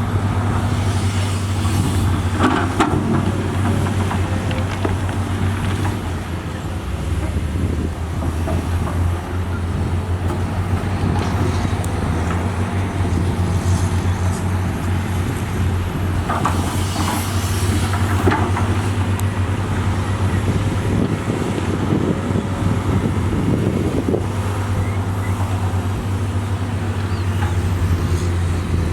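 Diesel engine of heavy earthmoving machinery running steadily under work, with a few brief metallic clanks.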